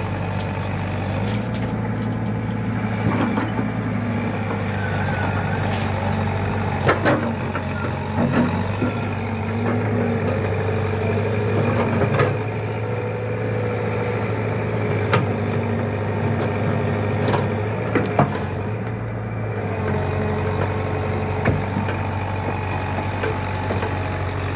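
Heavy diesel engine idling steadily, with a scattering of sharp metallic knocks and clanks from work on the excavator's track.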